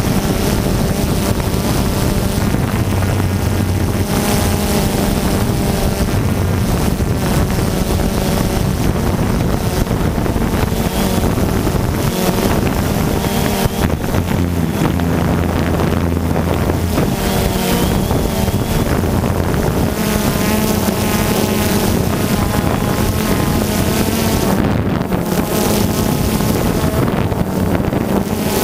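Multirotor drone's electric motors and propellers whirring loudly and steadily, recorded by the GoPro on the drone itself, with heavy rushing air from the rotor wash and wind. The motor pitch drifts up and down as the drone manoeuvres.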